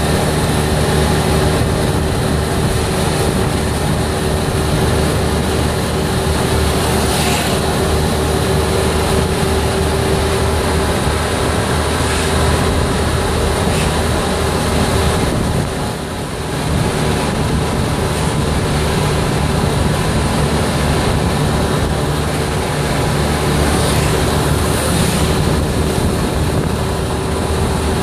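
Golf cart driving along a paved road: a steady drone from its motor with a few low, even tones, over road and wind noise. The drone dips briefly about sixteen seconds in, then returns.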